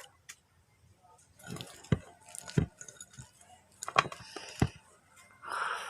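Scattered handling noises as slime and its containers are worked by hand: a few sharp clicks and taps, with a short rustle near the end.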